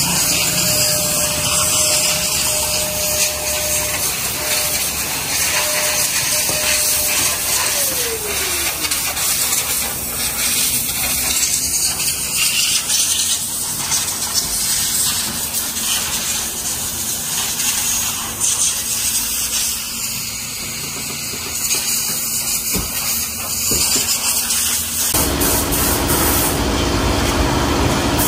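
High-pressure washer spraying water onto a car: a steady, loud hiss. Near the end a deeper rumble joins in.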